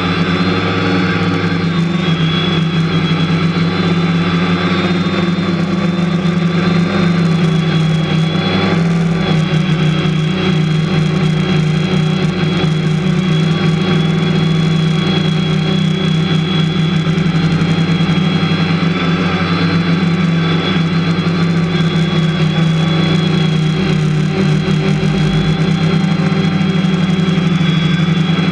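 Quadcopter drone's electric motors and propellers running in flight, a steady buzz with a constant high whine on top, heard close up from the camera mounted on the drone itself.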